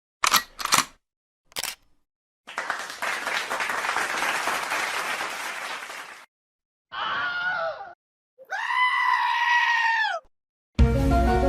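A run of short sound effects cut one after another: three sharp clicks, several seconds of noisy hiss, then two drawn-out, wavering scream-like calls, the second held steady. Music starts near the end.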